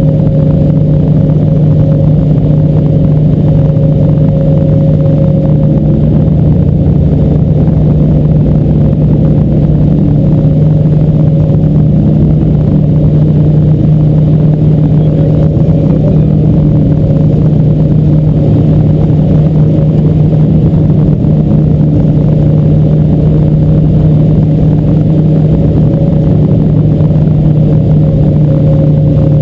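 A boat's motor running steadily at a constant speed, a loud unchanging drone with a strong low hum.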